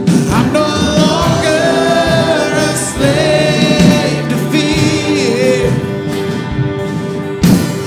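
A live contemporary worship band plays a song, with several vocalists singing together over acoustic guitar, electric guitars and keyboard.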